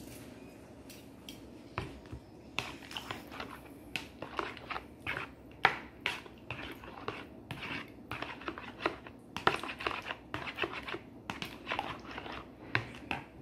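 Metal spoon stirring a thick, lumpy mixture in a plastic mixing bowl, knocking and scraping against the bowl's sides in quick, irregular clicks.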